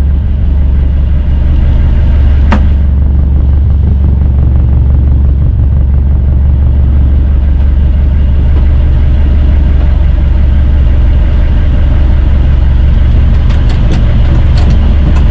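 Outrigger fishing boat's engine running steadily: a loud, low, even drone that holds the same speed throughout. A single brief click about two and a half seconds in.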